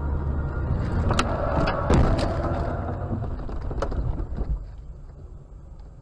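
Car crash heard from inside the car on a dashcam: steady road noise, then several sharp bangs and crunches about a second and two seconds in, and another near four seconds. After that the noise fades away.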